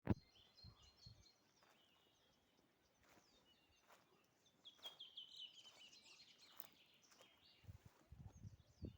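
Songbirds singing faintly: high chirps, with a run of quick repeated notes about five seconds in. Soft low bumps near the end.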